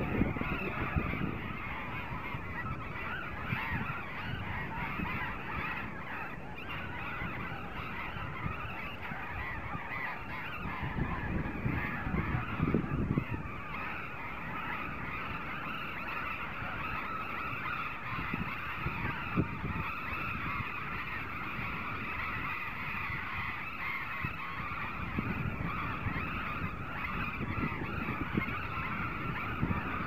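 A large colony of burrowing parrots calling continuously, a dense chorus of harsh screeching calls over a low rumble.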